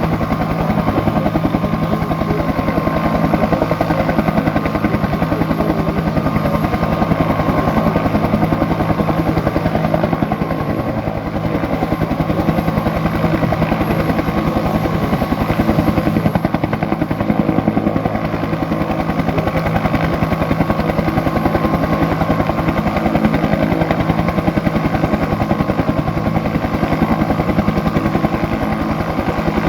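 Bell UH-1 "Huey" helicopter running: the rapid, even beat of its two-bladed rotor over the steady whine of its turbine engine, holding level the whole time.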